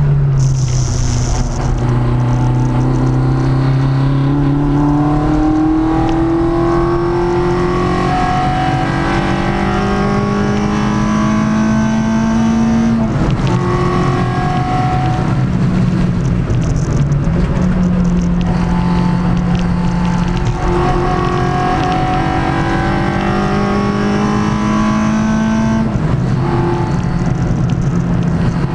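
A Peugeot 106 track car's engine, fitted with Jenvey individual throttle bodies, heard from inside the cabin under hard acceleration. Its note climbs steadily through the revs in long pulls and drops sharply in pitch three times, about halfway through, a few seconds later and near the end.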